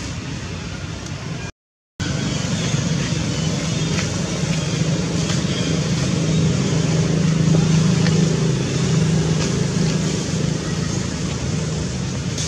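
Steady low hum of a running engine with outdoor background noise, swelling a little in the middle, broken by a moment of silence about a second and a half in.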